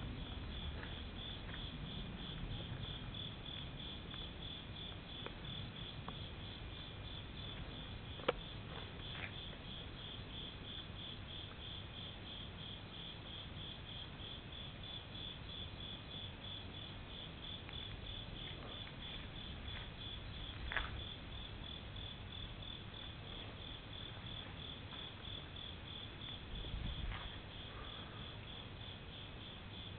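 Night insects, crickets among them, chirping in a steady, evenly spaced, high-pitched pulsing chorus. A few short knocks break in, the sharpest about eight seconds in.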